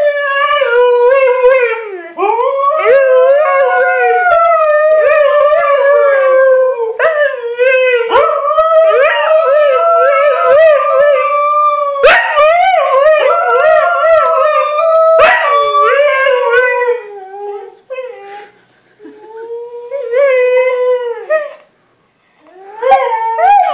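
Huskies howling: long, wavering howls held for many seconds. They break off about 17 seconds in, one shorter howl follows, and after a short pause the howling starts again near the end.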